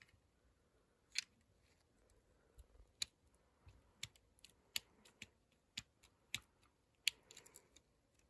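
Faint, irregular plastic clicks and taps from LEGO crane parts being handled and moved by hand. There are about a dozen separate clicks, with a quick cluster near the end.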